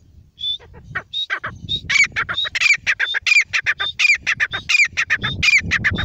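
Grey francolin calling: a fast series of repeated call notes that starts about half a second in and grows louder, about one and a half calls a second.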